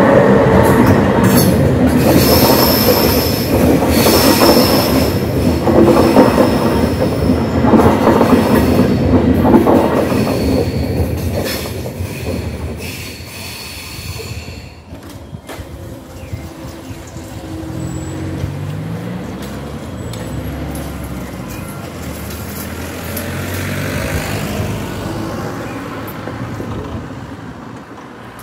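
An Intercity train hauled by a DB Class 146 electric locomotive with double-deck coaches passes loudly over the level crossing. Its wheels clatter over the rails with a high, steady squeal. The sound fades away over about the middle of the stretch.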